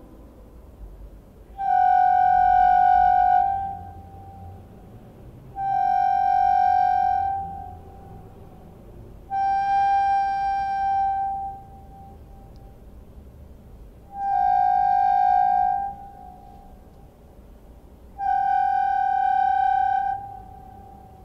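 Pre-Columbian ceramic whistle bottle sounding five long, steady whistle notes, all at one pitch, each about two seconds long and about four seconds apart.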